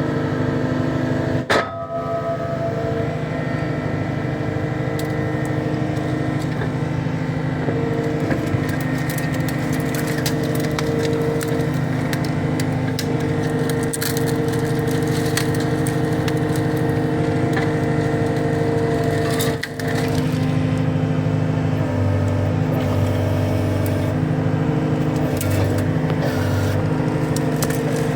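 Cat 259D skid steer's diesel engine running steadily under load while its grapple bucket rakes brush, with many cracks and snaps of breaking branches and wood.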